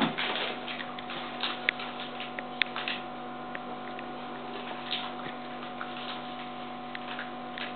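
A dog chewing a treat, with irregular short crunching clicks, more of them in the first few seconds. A steady electrical hum runs underneath.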